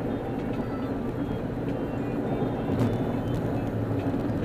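Steady road and engine noise inside a car's cabin at freeway speed: a continuous low drone.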